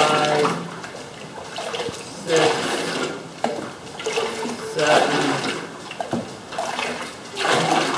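Scoops of beaten jute-and-flax paper pulp poured from a plastic scoop into a papermaking vat of water, splashing four times about two and a half seconds apart.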